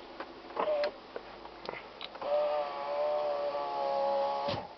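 Fiat 500's electric power window motor whining steadily for about two and a half seconds, then stopping abruptly, after a few light clicks.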